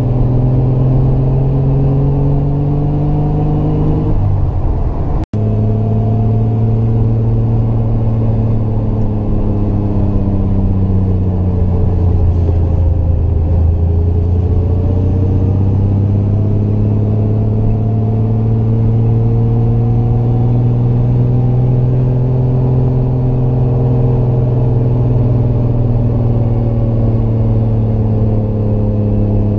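Triumph GT6 Mk2's two-litre straight-six engine pulling uphill under load. Its revs climb, then fall away sharply about four seconds in, and the sound cuts out for an instant. It then pulls steadily, the note dipping about halfway through and rising again.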